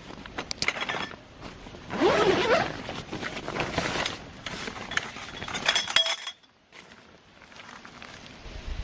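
Light clinks and clatter of small hard objects, several in quick succession, with a brief rising pitched sound about two seconds in. A cluster of ringing clinks comes just before the sound drops away suddenly, about six seconds in.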